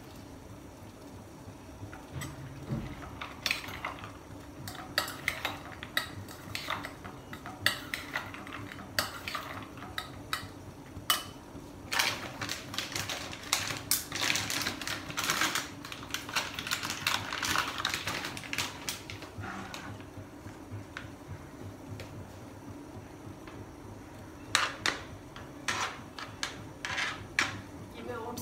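Steel kitchen utensils clinking and scraping: a metal spoon and other utensils knocking against a stainless steel bowl as chopped salad vegetables are handled and mixed, in irregular clinks that come thickest about halfway through.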